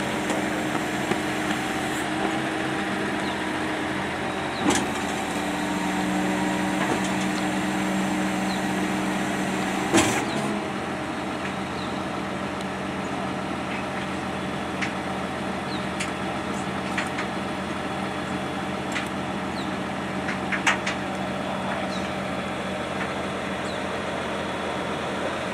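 Tilt-tray tow truck's engine running with the tray hydraulics working as the tilted tray is brought down level, ending in a loud clunk about ten seconds in. After that the truck idles steadily, with occasional light clicks and knocks.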